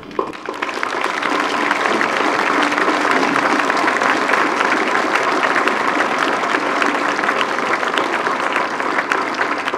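Large audience applauding: many hands clapping at once. It builds over the first second, holds steady, then thins near the end.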